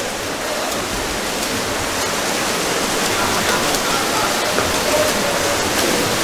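Steady rushing noise of water splashing and churning in a swimming pool during water polo play, with faint voices now and then.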